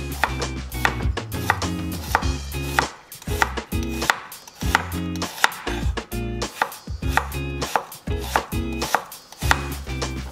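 Chef's knife slicing an onion on a wooden cutting board: repeated crisp knife strokes knocking on the board, about one to two a second.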